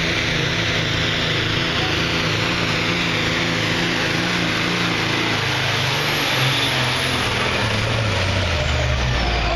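Diesel pulling tractor running flat out as it drags the weight sled. Its engine pitch holds steady, then drops over the last few seconds as the engine bogs down under the sled near the end of the pull. A thin high whine above it falls along with it.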